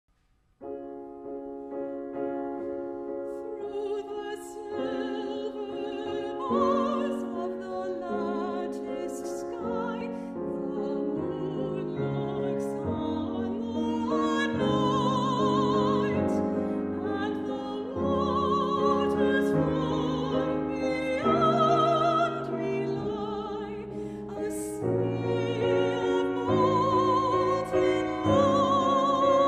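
Soprano singing a classical art song with a wide vibrato, accompanied by piano. The piano starts about half a second in and the voice joins a few seconds later.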